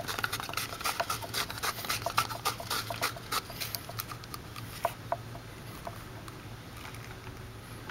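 Plastic extension-cord lock clamp clicking and rattling as hands fit it over joined plugs and snap it shut. The clicks come thick and fast for about four seconds, then thin to a few single clicks and stop about five seconds in.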